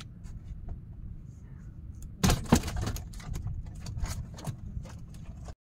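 Wind rumbling on the microphone in an open boat, with a run of sharp knocks and rattles from about two seconds in as a freshly caught catfish is handled and put down in the wooden boat. The sound cuts off suddenly near the end.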